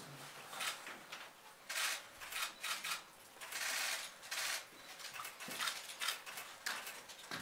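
Press photographers' camera shutters clicking, a scatter of single clicks and rapid strings of clicks.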